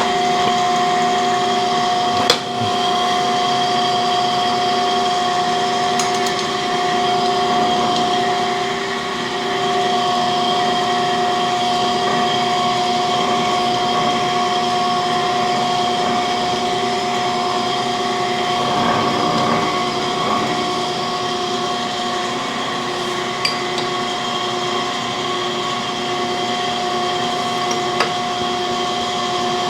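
Cam grinder running at a steady hum and whine, with several steady pitches. A few light metallic clicks from the tools at work on the machine, about two seconds in and twice near the end.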